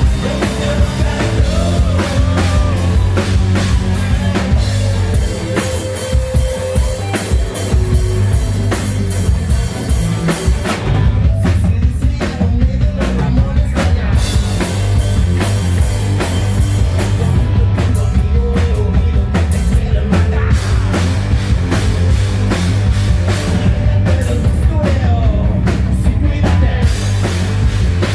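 Live hard rock band playing loud, with a driving drum kit beat, heavy bass and electric guitars.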